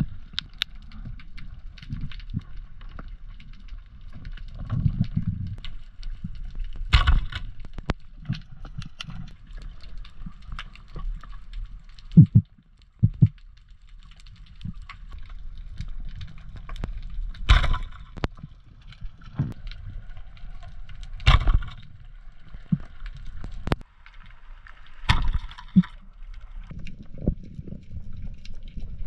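Underwater sound heard through a diving camera's housing: a low, uneven water rumble with faint crackling, broken by a handful of sharp knocks spread through the stretch.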